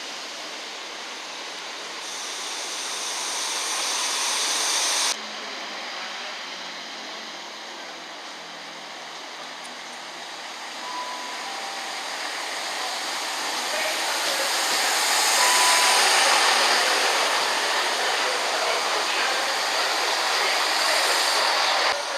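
A train passing through the station, its rushing rail and wheel noise swelling to a peak about two-thirds of the way through and then easing off. An abrupt cut about five seconds in drops the level suddenly.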